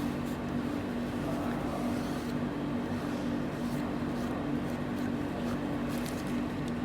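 Steady machine hum with a low, even drone and faint clicks.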